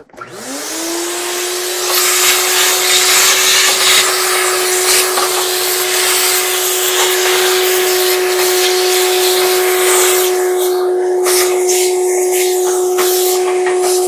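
Vacuum cleaner switched on, its motor whining up to speed within the first second, then running steadily with a loud rush of air as the wand sucks lint out of the opened dryer cabinet. The airflow sound wavers in the last few seconds as the nozzle is moved around.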